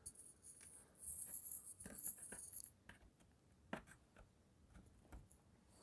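Faint scraping of a spudger pry tool along the seam of an HP Envy x360 laptop's bottom case, with a few small clicks as the case's plastic clips are worked loose.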